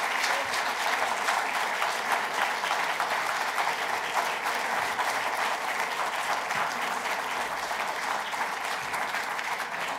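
Audience applauding: a dense, steady clatter of many hands clapping that eases slightly toward the end.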